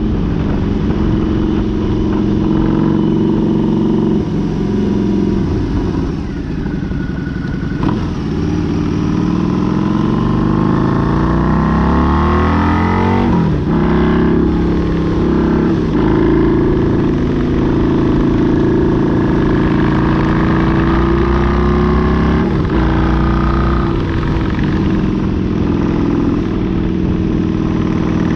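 Harley-Davidson V-twin motorcycle engine running on the road, its note stepping and sweeping up and down in pitch with throttle and gear changes, over a steady rush of wind and road noise on the bike-mounted microphone.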